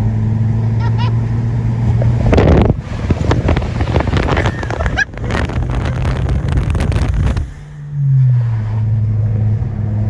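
Straight-piped Ford Focus ST engine and exhaust heard from inside the cabin, droning at a steady pitch. A rougher, noisier stretch lasts several seconds in the middle, then the revs drop with a falling pitch near the end before settling steady again.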